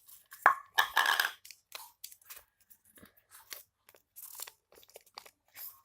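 Close handling noise: a run of irregular crinkles, crunches and rustles, thickest about half a second to a second and a half in, then scattered and lighter.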